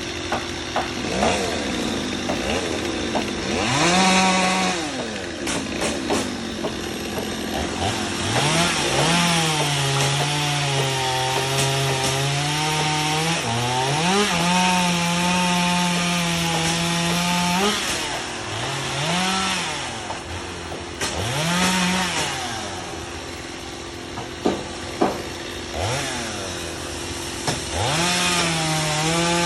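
Chainsaw revving up again and again, held at full throttle for a few seconds at a time as it cuts through tree limbs, then dropping back to idle between cuts.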